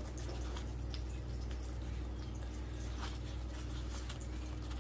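Kitchen room tone: a steady low hum with a few faint, scattered ticks.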